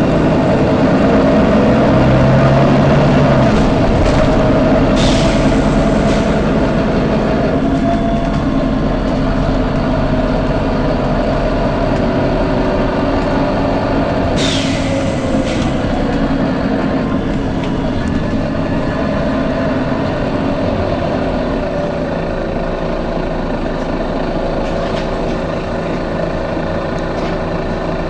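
Volvo B9TL double-decker bus running, its diesel engine humming steadily, with two short hisses of compressed air from its air system: one about five seconds in and another about fourteen seconds in.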